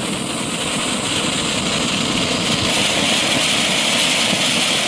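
Silver pyrotechnic ground fountain burning, a steady rushing hiss of spraying sparks that grows louder and brighter about three seconds in.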